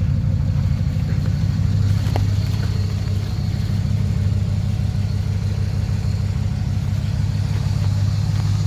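Pickup truck's engine idling steadily, a low even hum with no revving.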